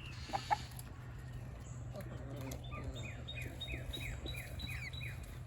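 A songbird singing a rapid series of about ten short, down-slurred whistled notes, roughly four a second, starting about halfway through.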